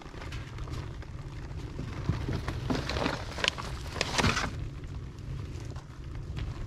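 Fire crackling and popping inside a 55-gallon steel drum burn barrel as freshly loaded feed bags catch, over a steady low rumble. The crackles come thickest in the middle.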